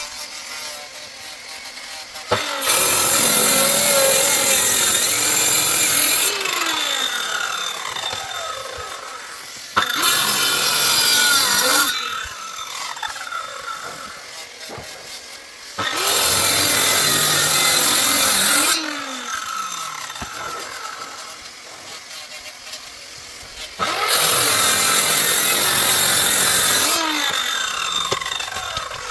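Electric power tool cutting wood in four loud passes of a few seconds each. Between passes the sound falls away with a dropping pitch.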